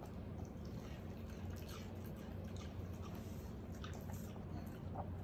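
Shiba Inu's faint wet licking and lip-smacking at a piece of watermelon: scattered small clicks over a steady low hum.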